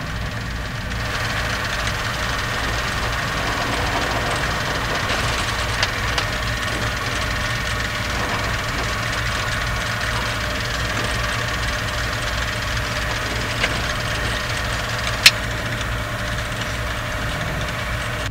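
Rotax 912 ULS four-cylinder boxer engine of a Sling 2 light aircraft running steadily at low power with a pulsing throb from the turning propeller. A few sharp clicks sound over it, the loudest a little after three quarters of the way through.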